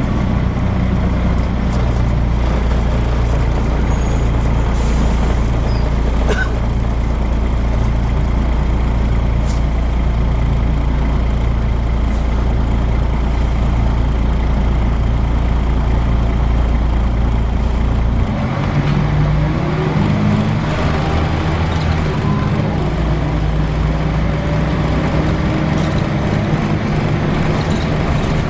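Volvo B10BLE bus running, a steady low engine drone. About eighteen seconds in the note changes, and faint rising whines from its ZF automatic gearbox come in.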